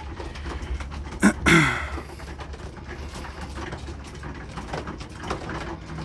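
Racing pigeons pecking grain from a feed trough: many small irregular clicks and taps over a low steady hum, with one brief louder sound falling in pitch a little over a second in.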